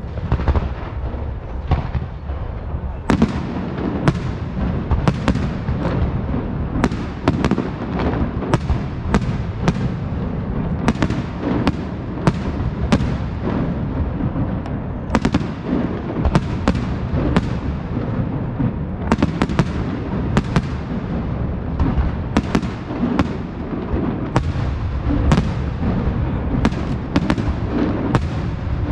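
Aerial firework shells bursting in quick succession, each a sharp bang, over a continuous low rumble of launches and distant detonations. The bursts are few for the first three seconds, then come about one to two a second.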